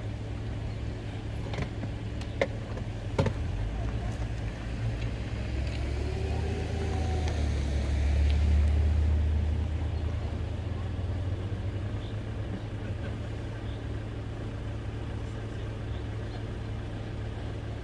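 Car engines running at low speed: a steady low engine hum, with a car moving off that swells and fades again, loudest about halfway through. Three sharp clicks come in the first few seconds.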